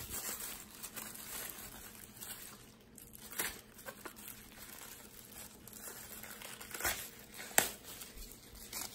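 Crisp crinkling and tearing as a head of lettuce is handled and its leaves are pulled off by hand, with a few sharp snaps of leaves breaking.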